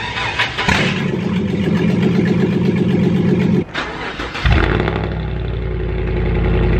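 Two pickup truck engines in turn. The first starts just under a second in and runs steadily. After a break, a second one fires up a little past the halfway point and settles into a low, steady running note.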